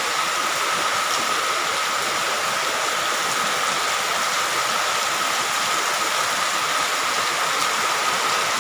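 Heavy rain falling steadily, a constant downpour hissing on muddy ground, puddles and foliage.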